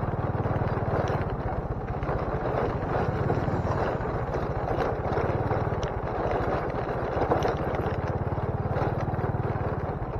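Motorcycle engine running steadily at low revs while riding along a bumpy dirt road, with a few brief sharp ticks from the rough surface.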